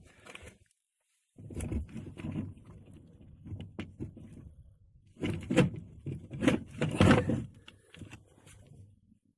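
Handling noises and clatter, with three loud knocks in the middle, as an electric coolant preheater is switched on under a car's bonnet; underneath runs the faint steady low hum of its mains-powered circulation pump, which is very quiet.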